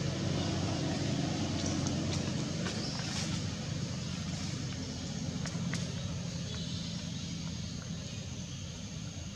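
Low steady rumble of a motor vehicle passing on a nearby road, easing off slightly toward the end, over open-air background noise with a few faint clicks.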